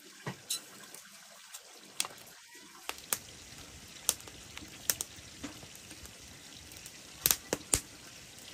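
Firewood burning under a wok: a steady crackle with scattered sharp pops, the loudest a quick cluster of pops a little after seven seconds.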